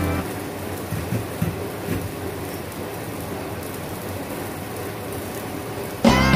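Pork slices simmering in sauce in a wok, an even sizzling, bubbling hiss with a few faint pops. Background music cuts out as it begins and comes back in near the end.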